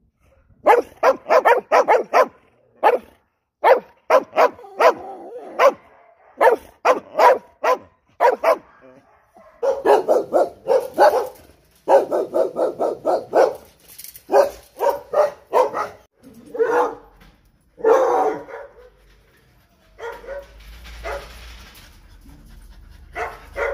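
Dogs barking loudly in quick runs of short, sharp barks with brief pauses between them; the barking thins out over the last few seconds.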